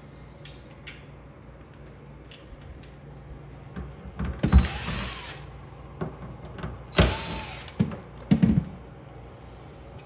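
Cordless impact driver run in short bursts to back out Phillips screws from a plastic shelf holder. The longest run, about a second, comes about halfway through, then a shorter one, with a few brief spins and clicks after it.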